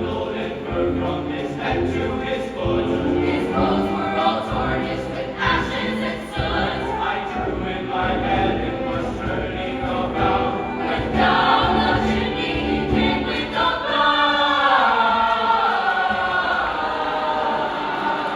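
A choir singing a Christmas song, with many voices together over a steady musical backing.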